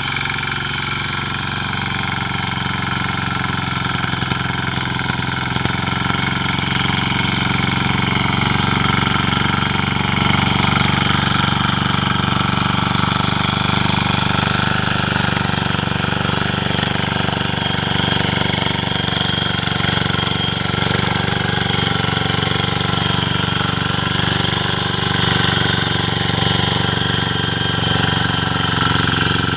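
Lombardini engine of a walk-behind tiller running steadily, getting a little louder over the first several seconds and then holding even.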